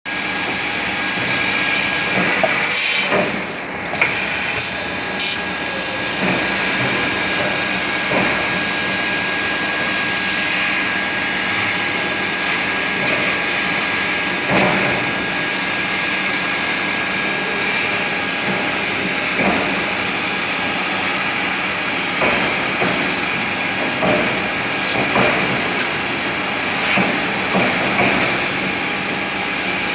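Laser cutting machine cutting 2 mm stainless steel sheet: a steady loud hiss with a faint steady whine under it. Short louder surges come every few seconds, and the sound dips briefly about three seconds in.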